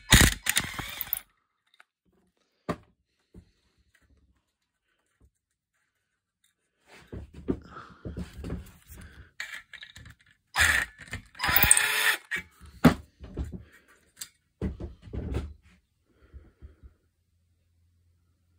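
A screwdriver working bolts out of a small two-stroke brushcutter engine and metal engine parts being handled. A scrape at the start, a lone click, a few quiet seconds, then irregular clinks, knocks and rattles.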